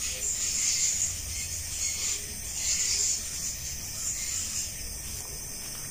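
Night insects calling: a steady high chirring with louder rasping swells every second or two.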